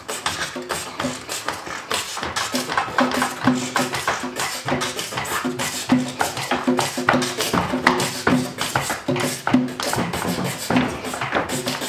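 Tall wooden hand drums struck with bare hands in a quick, steady rhythm, mixing deep ringing tones with sharp slaps.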